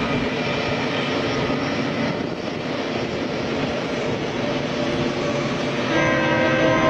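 Train running with a steady rumbling drone, and a train horn starting to sound about six seconds in.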